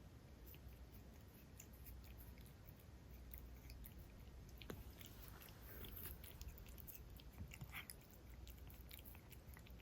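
Cat grooming itself, licking its fur: faint, irregular small wet licks and clicks.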